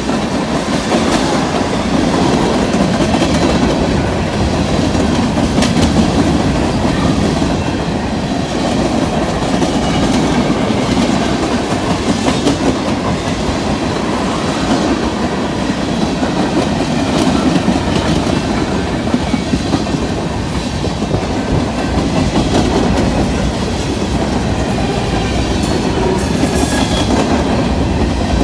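Train cars rolling past close by at speed: a steady rumble with wheels clicking rhythmically over the rail joints. A faint high wheel squeal comes in near the end.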